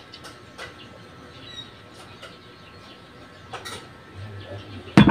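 Swallows of water drunk from a glass mug, with faint bird chirps in the background. Near the end, the loudest sound: the glass mug set down on the table with a sharp clink.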